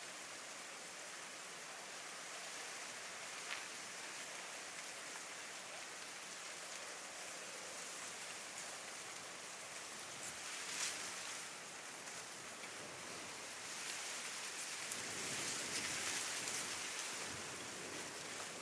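Steady rain falling: an even hiss with a few sharp drop ticks, growing somewhat louder for a few seconds near the end.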